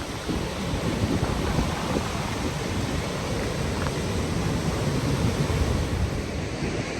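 Steady roar of Gullfoss waterfall, with wind buffeting the microphone in rough low gusts.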